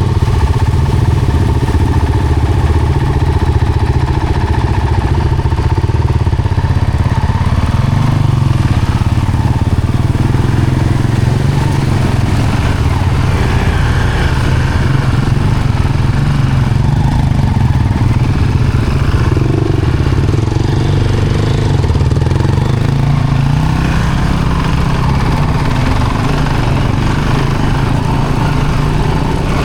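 A vehicle's engine running steadily on a backcountry trail, with a low, even drone and small shifts in pitch as it drives on.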